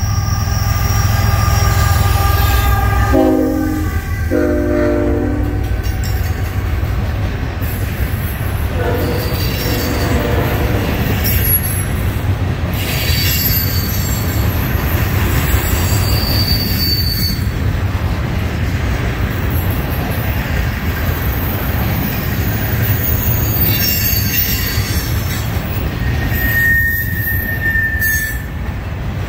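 Norfolk Southern freight train passing close by. Its diesel locomotives go past first with a heavy rumble, and the horn gives two short blasts about three seconds in. A long string of loaded trash cars follows, with steady wheel rumble, clickety-clack, and a high wheel squeal near the end.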